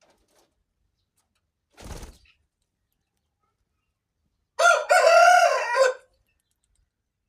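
A rooster crows once: a loud crow of about a second and a half, with a short first note and then a longer held note that falls away at the end. About two seconds earlier there is a short muffled rustle.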